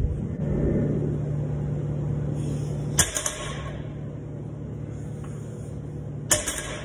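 Loaded deadlift barbell clanking with sharp metallic clinks of its iron plates, once about three seconds in and again near the end, as the bar is gripped and pulled. A steady low hum runs underneath.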